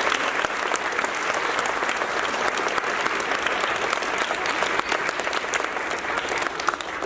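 Audience of parents and students applauding, a steady patter of many hands clapping that eases slightly near the end.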